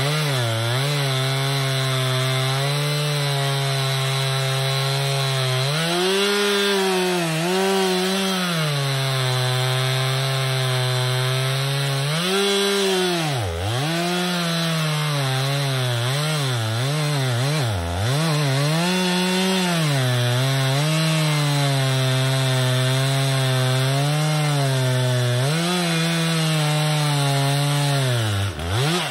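Stihl two-stroke chainsaw at full throttle, cutting into the base of a tree trunk in a felling cut. The engine pitch sags and recovers over and over as the chain bogs in the wood, with two deep dips in the middle. Near the end the throttle is released and the engine note drops away.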